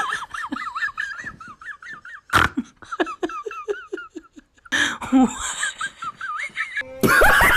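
A woman laughing in a run of short giggles, with a sharp click about two and a half seconds in and louder laughter near the end.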